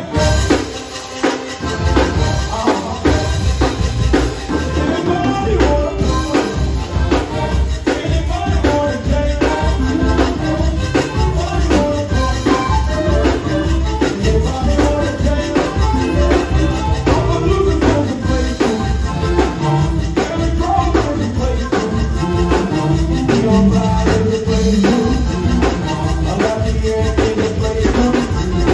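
Live zydeco band playing: a Gabbanelli accordion carries the melody over a steady drum beat and bass, with a metal rubboard (frottoir) scraped in time. The bass and drums drop out for about a second at the start, then come back in.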